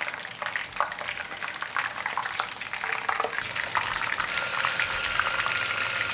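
Battered chicken pieces deep-frying in hot oil in a cast-iron pot during their second fry, a steady crackling and bubbling sizzle. About four seconds in, the sizzle grows louder and denser with a thin steady tone over it, then cuts off abruptly.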